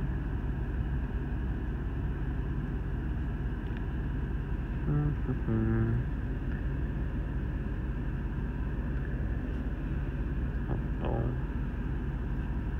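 Steady low rumble and hiss inside a car's cabin. A man gives a short low hum about five seconds in and a fainter one near eleven seconds.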